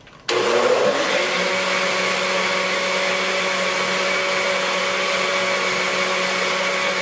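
Countertop blender running at speed, blending a cookie-and-milk mixture. It switches on suddenly about a third of a second in, and its pitch settles within the first second into a steady, loud hum.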